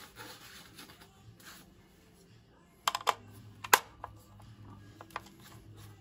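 Sharp plastic clicks and taps at an old DA Systems Abacus alarm keypad as its case is worked with a screwdriver: a quick cluster of about three clicks some three seconds in, a louder single click just after, then a few lighter taps, over a faint steady hum.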